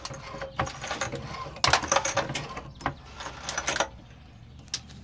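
Floor jack being pumped under the truck cab to lift the body off its loosened mounts: a run of metallic clicks and clanks, busiest from about a second and a half in until nearly four seconds.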